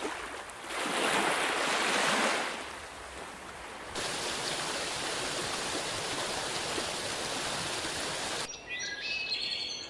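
Outdoor nature ambience: a steady rushing noise that changes abruptly a few times, then birds chirping for about the last second and a half.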